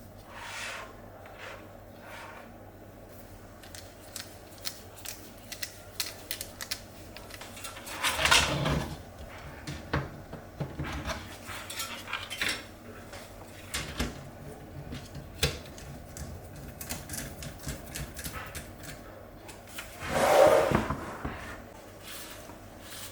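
Hands handling PC parts during assembly: scattered clicks and light metallic clinks, with two louder noises about a second long, one about eight seconds in and one near twenty seconds. A faint steady low hum runs underneath.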